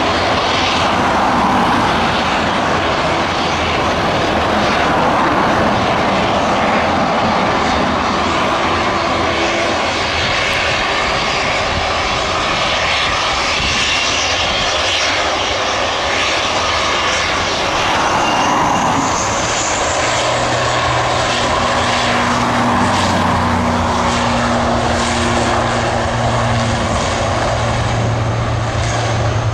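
Airliner engines running loud at the runway: a steady, broad roar, with a low hum joining it about two-thirds of the way through.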